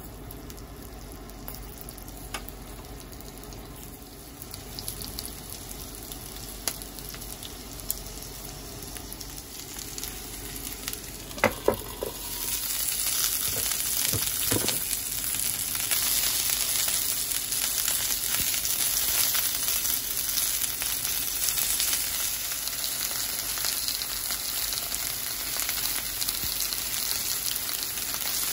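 Bite-size chicken breast pieces coated in curry powder and potato starch frying in oil in a nonstick pan. The sizzle is faint and patchy while pieces are added, then swells about twelve seconds in to a steady, louder sizzle as they brown. Two sharp knocks stand out a little before halfway.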